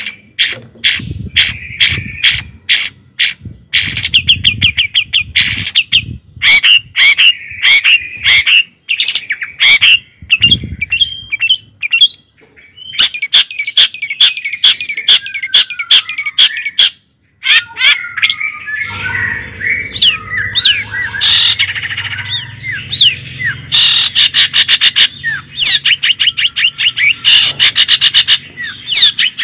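Birds chirping loudly in fast runs of repeated high chirps, with sliding calls mixed in during the second half.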